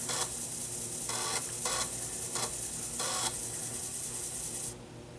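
Apple 5.25-inch floppy drive spinning and reading a disk, a steady whirring hiss with a few brief louder buzzes. It stops suddenly about four and a half seconds in, once the next program screen has loaded.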